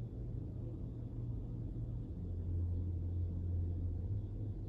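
A steady low hum with no speech over it; its pitch drops slightly about two seconds in and rises back near the end.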